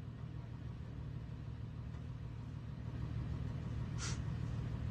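Toyota Land Cruiser Prado engine idling with a steady low hum, the SUV held on the brakes before a steep climb. A brief hiss about four seconds in.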